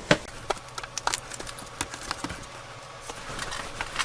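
Irregular sharp clicks and light knocks from handling a laptop and small repair tools on a work surface, the loudest right at the start.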